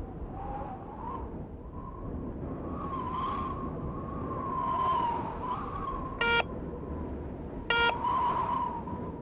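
Wind blowing, with a wavering high whistle. Two short electronic beeps sound about a second and a half apart, and they are the loudest sounds.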